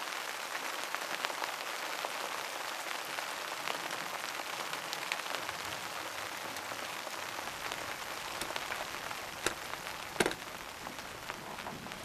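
Steady rain falling, a dense, even hiss dotted with scattered drop ticks, with a couple of sharper ticks near the end.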